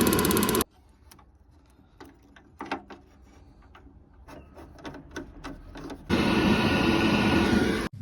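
Gas boiler's spark ignition electrodes clicking rapidly in two bursts of about two seconds each, one ending just under a second in and one starting about six seconds in, with small clicks and knocks between.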